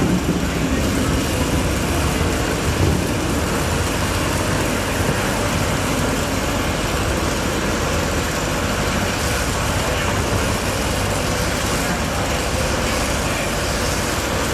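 Steady road traffic noise with indistinct voices.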